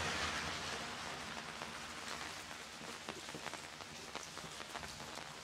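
Rain falling on wet street pavement: a steady hiss, with scattered individual drops and drips tapping irregularly.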